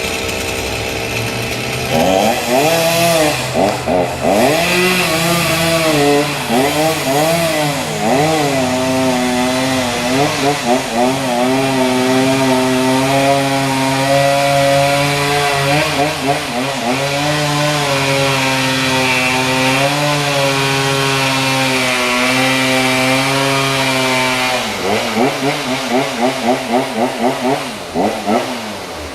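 Chainsaw idling, then revving up about two seconds in and cutting wood. Its pitch dips and climbs as the chain bogs under load and frees again. Near the end come a string of quick throttle blips before it drops back.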